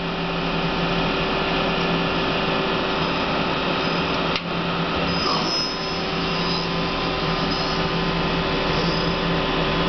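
Hardinge Quest 10/65SP CNC turning center running under power: a steady machine hum with several held tones over an even whir, broken by a single click a little after four seconds in.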